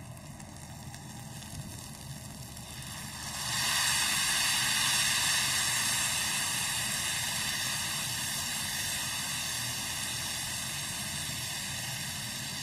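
Water poured into a hot, oiled pan of fried rice and vermicelli: a loud sizzling hiss starts about three and a half seconds in and fades only slowly as the pan keeps hissing.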